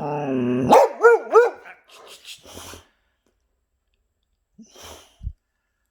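Boxer dog barking: one longer bark, then two short, sharp barks about a second in. A brief low thump near the end.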